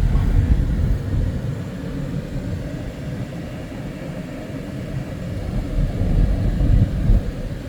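Low, steady rumble of a vehicle on the move: engine and road noise.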